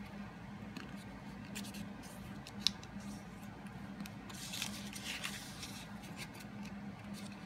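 Card paper being folded and creased by hand: soft rustles and scattered light ticks, one sharper tick a little under three seconds in and a brief rustling swish just past halfway. A low steady hum sits underneath.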